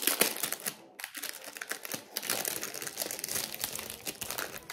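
Clear plastic packaging around a rolled diamond painting canvas crinkling as it is handled and unwrapped. Dense crackling, loudest at the start, with a brief pause about a second in before it carries on.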